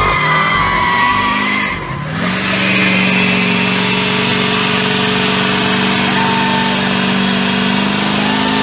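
Tire squeal fading out, then a 2500HD pickup truck's engine held at steady high revs during a burnout, its rear tire spinning in place on the pavement.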